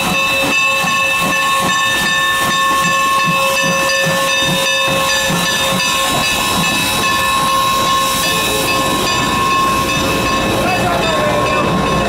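Norfolk & Western No. 475, a 4-8-0 steam locomotive, passing close with a loud hiss of steam and several steady high tones held together, fading near the end. A low beat, about three a second, runs under it for the first half.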